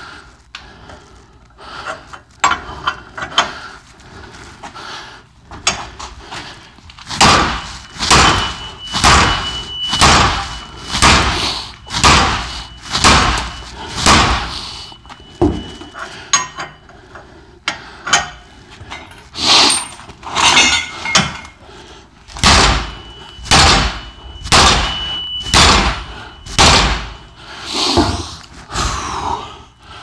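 Sledgehammer blows on a hammer wrench fitted to an OTC hub puller's centre screw, steel on steel with a short ring after each hit. Fainter knocks come first, then about one heavy blow a second from about seven seconds in. The hub is rusted fast onto the CV axle, 'like if it's welded on.'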